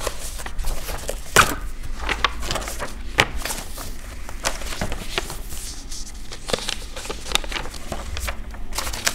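Paper pages being turned one after another in a thick ring binder, rustling and flicking irregularly, with a couple of sharper snaps in the first few seconds.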